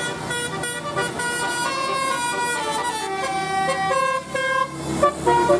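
Bus 'telolet' multi-tone horn playing a tune: a run of steady notes, several sounding together, changing pitch every fraction of a second, with louder short toots near the end.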